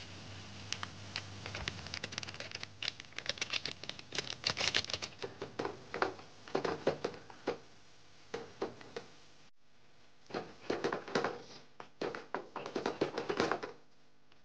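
Rapid, irregular tapping and clicking, in two runs broken by a short pause about nine and a half seconds in.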